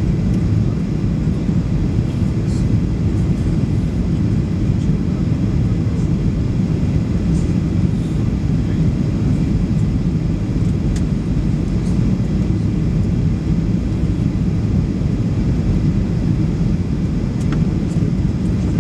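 Steady low rumble of jet engine and airflow noise heard inside the passenger cabin of a Boeing 737 MAX on its approach to land, with a few faint ticks now and then.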